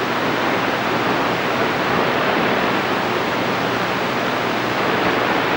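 CB radio receiver hissing with steady static between transmissions, with no station coming through.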